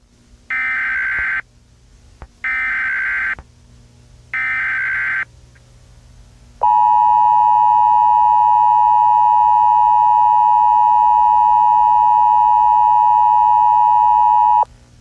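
Emergency Alert System broadcast: three short screeching bursts of digital header data, each about a second long and a second apart, then the steady two-tone EAS attention signal held for about eight seconds before it cuts off suddenly. This is the start of an Amber Alert relayed over FM radio.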